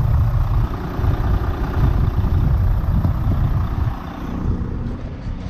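Volvo semi truck's diesel engine idling while it warms up, heard close at the open engine bay with its belts and pulleys turning. The owner says the idler pulley has begun to squeak slightly. The sound drops in level about four seconds in.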